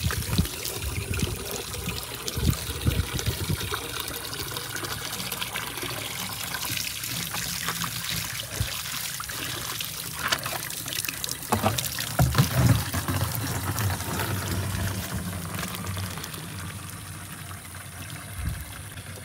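Water trickling and pouring, with a few brief knocks.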